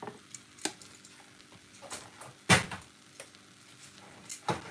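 Metal kitchen tongs clicking and scraping against a ceramic serving platter and the vegetables on it: several light, sharp clicks, with one louder knock about two and a half seconds in.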